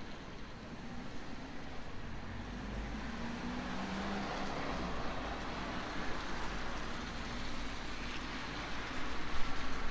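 Distant engine rumble over a city's steady background hum, with a faint low drone that swells around the middle; the noise grows louder and more uneven near the end.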